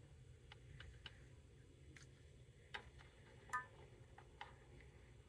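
Near silence, with a few faint, irregularly spaced ticks.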